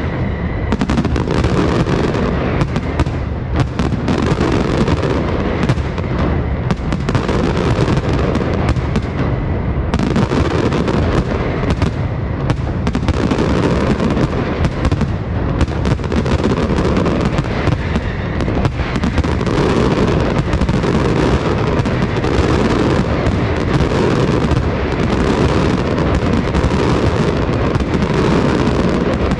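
Pirotecnia Martí aerial firework shells bursting in a dense, continuous barrage, the booms overlapping with no break.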